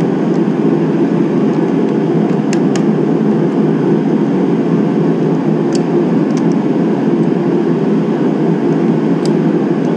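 Steady low rumble of constant background noise, with a few faint metallic clicks as the transmission's shift rods and selector parts are handled and fitted.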